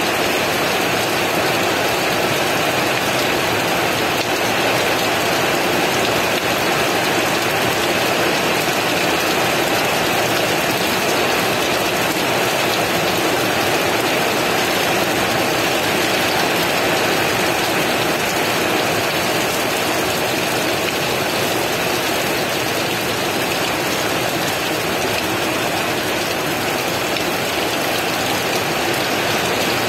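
Heavy rain falling steadily, a dense even hiss with no thunder claps.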